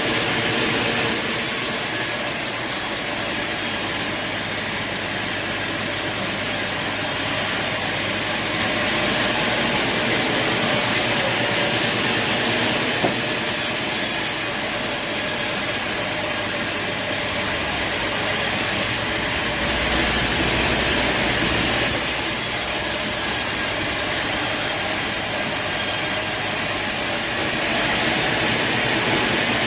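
Sawmill machinery running, with a steady, hissing mechanical noise whose tone shifts every few seconds.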